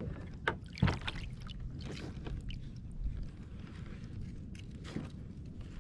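Scattered knocks and clicks of a fish being handled aboard a plastic fishing kayak, with a sharper knock a little under a second in, over a low steady rumble.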